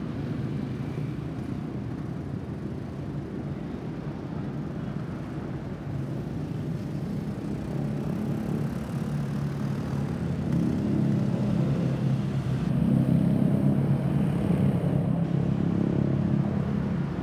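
Low jet rumble from a Boeing 737-800's CFM56 engines as the airliner flies away, swelling louder in the second half.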